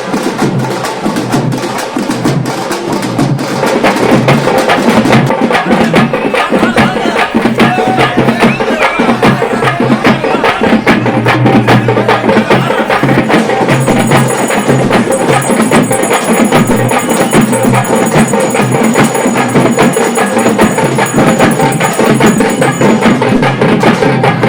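Music dominated by fast, dense drumming, with a few steady high tones held through the middle part.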